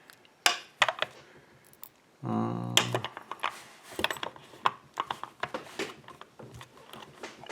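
Sharp metallic clicks and taps of small tools being handled against a euro cylinder lock while work starts on its retaining clip, with a short hum of a voice about two seconds in. The clicks are scattered at first and come quickly, one after another, over the last few seconds.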